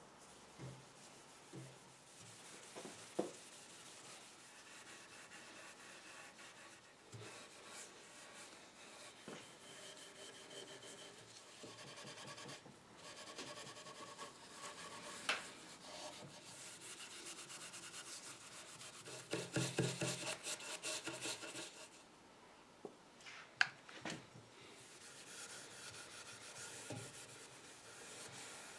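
Steel wool rubbing wax polish into a finished wooden table, a faint steady scratchy scrubbing. About two-thirds of the way through there is a louder stretch of quick back-and-forth strokes, and a few sharp clicks are scattered through it.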